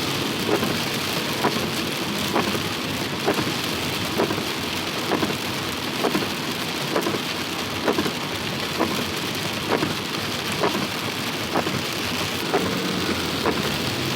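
Heavy rain falling steadily, with a regular knock about once a second.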